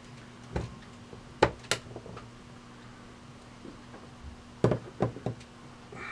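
Sharp metal clicks and taps from pliers working a stiff spring onto the cam of a vintage Beaver bulk vending mechanism: three in the first two seconds, then a quick cluster of three near the end.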